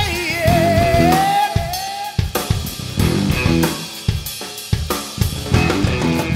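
Band-recorded rock song playing: drum kit and guitar. A held note wavers and slides in the first two seconds over a steady drum beat.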